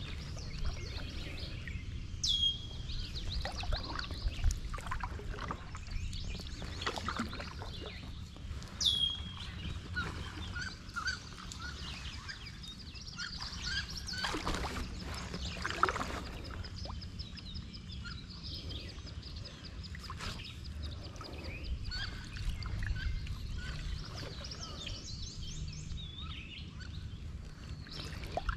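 Kayak paddle strokes dipping and dripping in calm water over a steady low rumble. Birds call: two sharp high whistles that sweep downward, then a long rapid trill.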